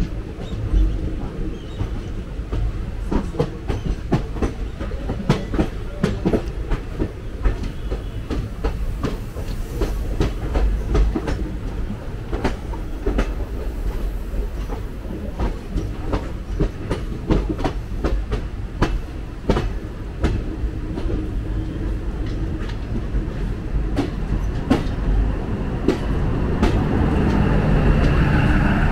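Northern Railway local train coaches rolling past at close range: a steady rumble with the clickety-clack of wheels over rail joints. It grows louder near the end as the louvred power car at the end of the train passes.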